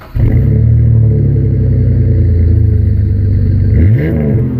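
A vehicle engine running loudly with a steady deep note, with one quick rev up and back down about four seconds in.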